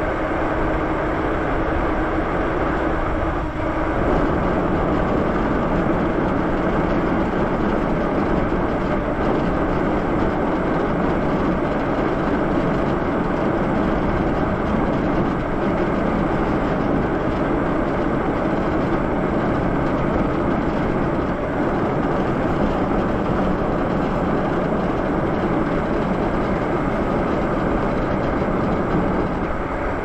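Steady rushing wind and road noise from a moving Lyric Graffiti e-bike, air buffeting the microphone over the hum of tyres on pavement. A faint steady hum underneath shifts lower about four seconds in.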